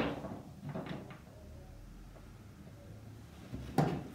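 Handling sounds of a hand crimping tool and wires on a workbench: the fading end of a thump at the very start, a few faint clicks about a second in, and a single sharp knock near the end as the crimper is picked up off the bench.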